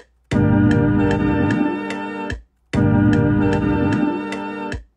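A beat in progress plays back as a short loop: sustained organ-like keyboard chords with a low bass line and evenly spaced percussive hits, about three a second. The loop cuts off just after the start and again about two and a half seconds in, restarting each time, as a pattern does when a producer stops and replays it.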